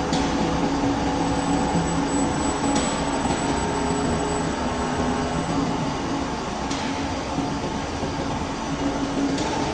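CNC metal-cutting machine running: a steady mechanical hum with several held low tones. A thin high whine joins about a second in and dies away around halfway.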